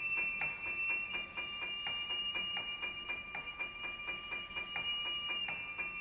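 Contemporary chamber ensemble music: held high tones over a fast, even pulse of short, dry strokes, about four a second.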